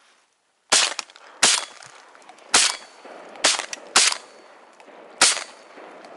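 Shotguns from two hunters firing six shots in all, unevenly spaced over about four and a half seconds, each with a short ringing tail.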